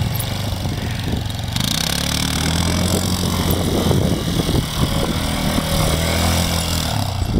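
Kymco MXU 150 ATV's single-cylinder engine running as the quad is ridden. Its pitch climbs about a second and a half in, holds steady, then drops near the end.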